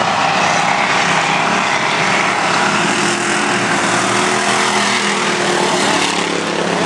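Several thunder-class dirt-track race cars running flat out through a corner and passing close by. Their engines make a loud, steady drone with shifting engine notes.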